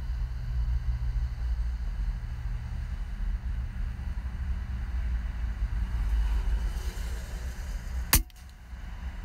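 An air rifle fires once, a single sharp crack about eight seconds in, over a steady low rumble.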